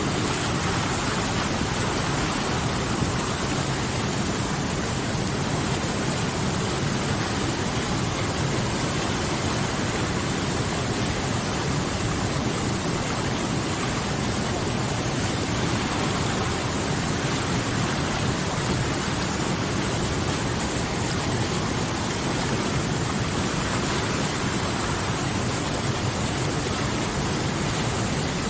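River water rushing steadily, an even noise with no breaks or changes.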